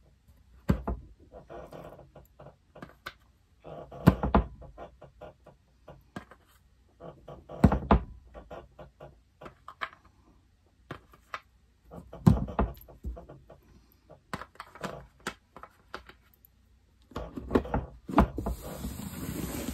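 Handling noise from a jigsaw puzzle and its plastic sorting tray: irregular light clicks and knocks, with a louder thump about every four seconds.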